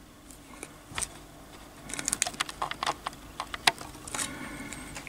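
Light clicks and taps of a metal miniature and plastic bases being handled on a desk, with a short whir of a camera lens motor a little after four seconds in.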